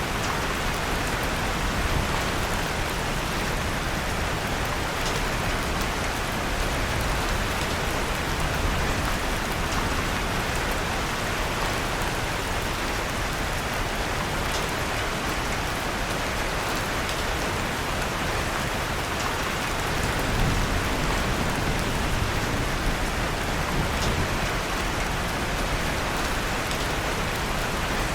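Steady rain falling, an even hiss, with a few faint pops of a wood fire crackling in the mix.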